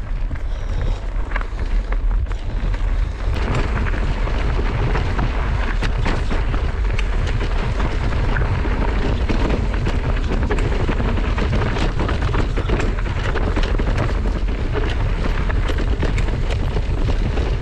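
Mountain bike riding fast down a rocky dirt singletrack: wind buffeting the camera's microphone with a heavy rumble, tyres crunching over gravel, and constant rattling knocks from the bike over stones, a little louder from about three seconds in.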